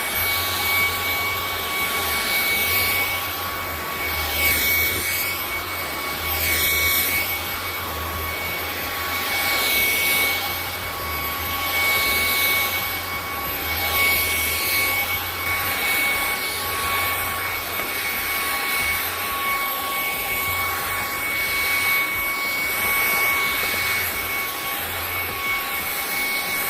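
KOOPOWER cordless stick vacuum cleaner running with a steady high motor whine over a rush of suction air. The air noise swells and fades every second or two as it is pushed back and forth over a rug. It shuts off sharply at the end.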